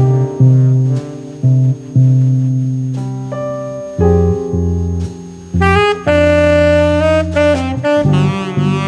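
Instrumental jazz: a saxophone plays a melody over a bass line, ending on a held note with vibrato.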